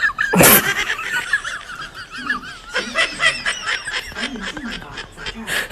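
High-pitched laughter in wavering squeals, broken into short bursts, with a brief loud burst of noise about half a second in.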